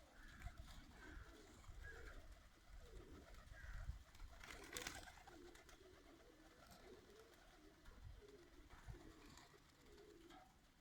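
Birmingham roller pigeons cooing softly, several coos overlapping and repeating, with a brief rustling noise a little before halfway.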